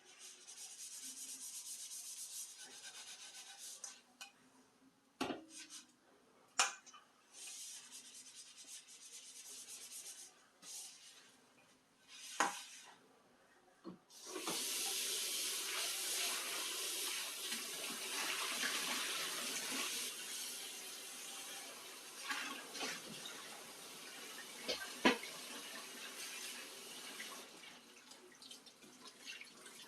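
Kitchen tap running in several stretches during hand dishwashing, loudest and longest from about halfway through. Sharp clinks of dishes knocking in the sink come every few seconds.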